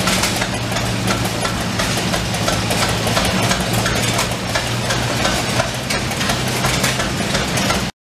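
Keck Gonnerman steam traction engine running steadily while belted to a sawmill, with a steady low hum and a fast, irregular patter of light knocks.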